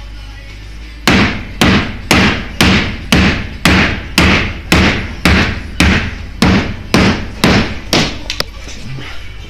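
A steady run of about fifteen hammer blows, roughly two a second, starting about a second in and stopping shortly before the end, each with a short ring.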